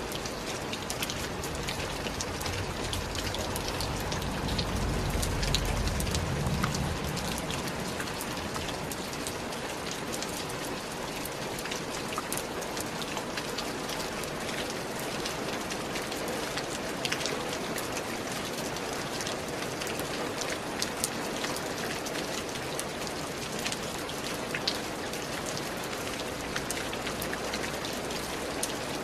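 Steady rain falling, with many individual drops ticking on a hard surface. A low rumble swells briefly about four to seven seconds in.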